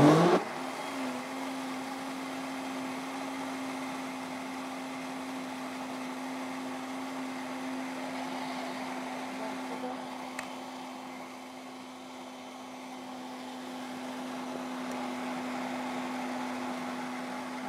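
Countertop electric blender switched on and spinning up, its pitch rising briefly, then running at a steady hum while it beats liquid cake batter of eggs, milk, oil and sugar until the sugar dissolves.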